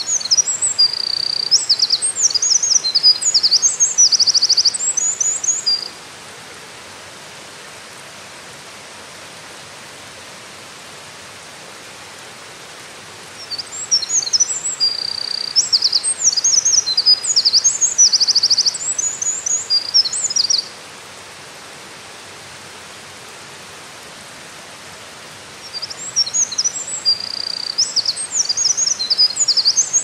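Eurasian wren singing loudly: long, rapid songs of high twitters and buzzy trills, each about six seconds, three times with pauses of about seven seconds between, the third still going at the end.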